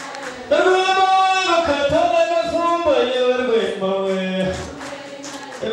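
Voices singing a song in long held notes, with a few soft low beats under it; the singing fades down toward the end.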